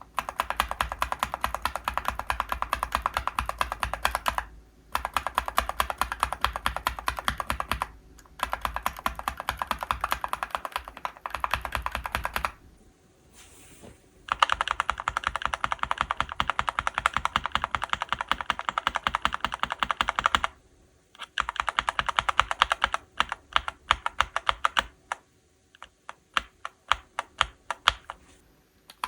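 Mechanical keyboard with linear switches being typed on in fast runs of keystrokes, broken by short pauses; near the end the presses slow to separate, spaced keystrokes.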